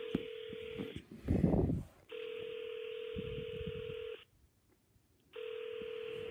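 Ringback tone of an outgoing phone call heard from an iPad: a steady tone repeats three times, each about two seconds long with about a second's gap, as the line rings and nobody has yet answered. A brief bump of handling noise falls between the first two tones.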